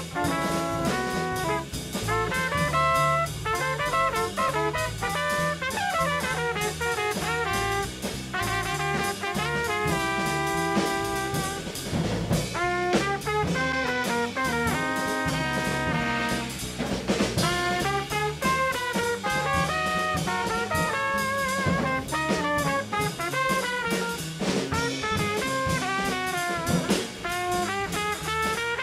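Jazz quartet playing: a saxophone carries a melodic line of many short, shifting notes over bass, drum kit and congas.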